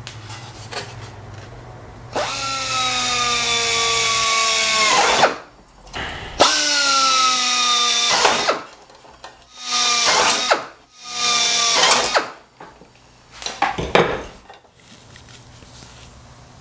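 Power drill running in five bursts, drilling holes in an aluminium engine baffle: two long runs of two to three seconds each whose pitch sags slightly as the bit bites, then three short runs of about a second.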